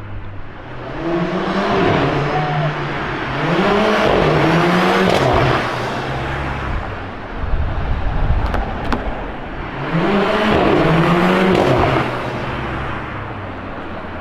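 Mercedes-AMG A45's turbocharged four-cylinder engine revved from idle three times, each rev climbing and held for about two seconds before dropping back. Sharp exhaust pops and crackles on the overrun come about eight seconds in, between the second and third revs.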